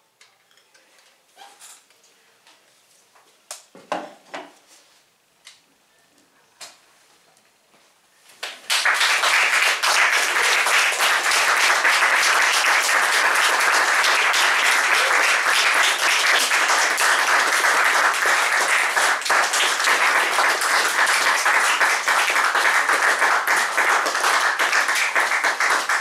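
Near silence with a few faint knocks, then about eight seconds in an audience suddenly breaks into applause and keeps clapping steadily, at the end of a piece.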